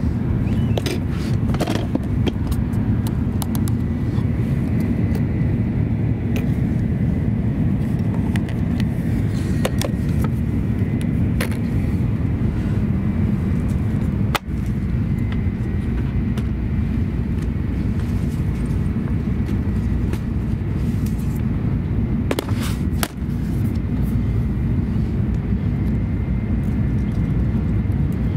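Interior cabin noise of an N700 Series Shinkansen running at speed: a steady low rumble with a faint high whine, and a few light clicks and knocks from the seat fittings being handled.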